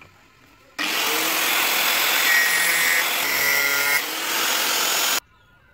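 Angle grinder with a thin cut-off disc cutting through a rusty steel sickle blade, a loud grinding hiss that starts about a second in and stops abruptly near the end.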